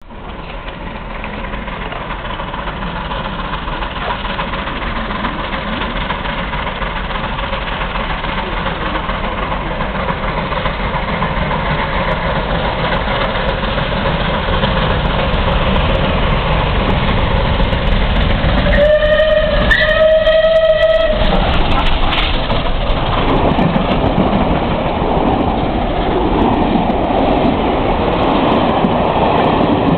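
Approaching steam train growing steadily louder, with SR Battle of Britain class 4-6-2 No. 34067 'Tangmere' sounding its steam whistle for about two seconds, rising slightly in pitch, two-thirds of the way through. The locomotive and its coaches then rush past at speed with a heavy rumble and wheel clatter.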